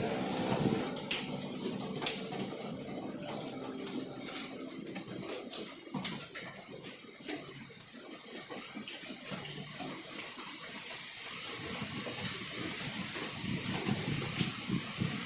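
Heavy rain pouring down, an even hiss with many sharp ticks and spatters of drops hitting nearby surfaces. A low hum fades out in the first second.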